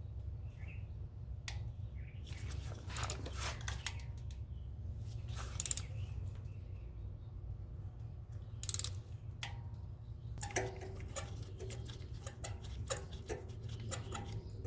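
Ratchet wrench clicking in short bursts, backing spark plugs out of a Toyota 2AR-FE engine with a spark plug socket on an extension, with the densest run of clicks near the end. A steady low hum runs underneath.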